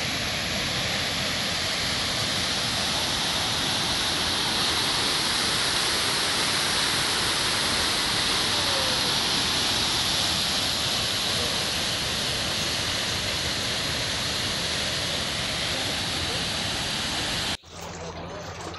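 Waterfall pouring, a steady dense rush of water. Near the end it cuts off suddenly, and a quieter flow of water running along a stone channel takes over.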